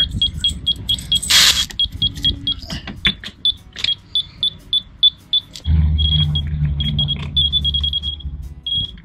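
Digital level's audible signal sounding short high beeps, about five a second, as the post is adjusted; near the end the beeps lengthen and nearly run together as the post comes close to level. Light metal clicks from the leveling nuts and washers come between the beeps, with a brief noisy rustle about a second and a half in.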